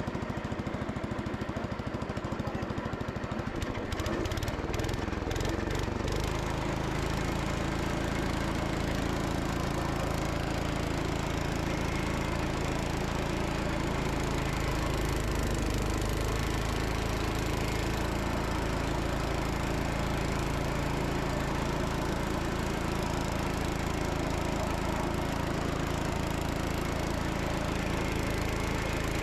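Kohler engine of a Gravely Commercial 10 walk-behind tractor running steadily while it drives a snowblower through deep snow. About six seconds in, its note changes to a lower, heavier drone that holds to the end.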